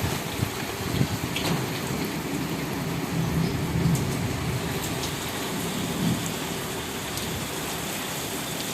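Steady heavy rain hissing, with individual drops tapping sharply now and then. A low rumble swells through the first few seconds and briefly again about six seconds in.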